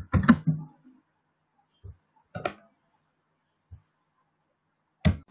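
A man's voice in a few brief mumbled syllables, separated by long quiet gaps.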